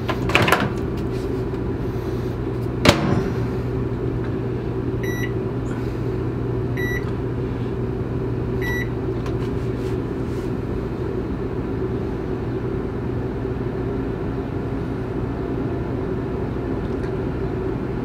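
Contoure convection microwave's control panel giving three short, evenly spaced high beeps as it begins preheating to 400 °F, after a sharp click near the start. A steady low hum runs underneath throughout.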